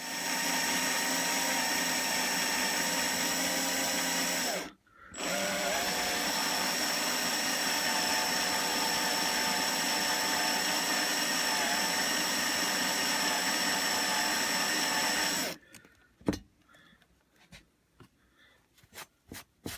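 Electric drill running steadily, boring a pilot hole into a broken-off screw stuck in a cast-iron stove frame; it stops briefly about four and a half seconds in, then runs again for about ten seconds. After it stops, a few light clicks and taps.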